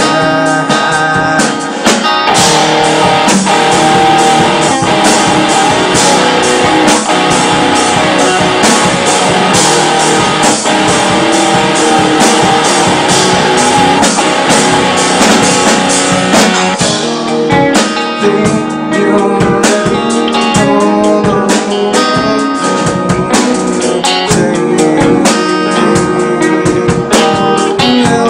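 Live rock band playing: electric guitars over a drum kit. The sound is thick with cymbals and guitar from about two seconds in, then thins out a little past halfway.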